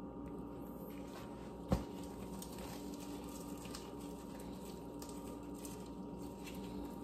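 Faint soft, squishy crackles of gloved fingers peeling the charred skin off a grilled eggplant, with one sharp click a little under two seconds in, over a steady low hum.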